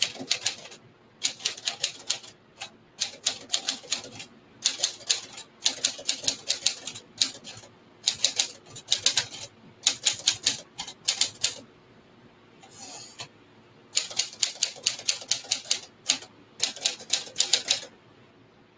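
1954 Smith Corona Clipper portable manual typewriter being typed on: runs of quick key strikes in bursts with short pauses, typing a test line meant to try every letter key.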